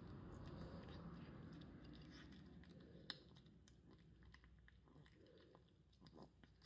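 A young calico kitten eating dry kibble from a ceramic dish: faint, scattered crunches as it chews, with a sharper crunch about three seconds in.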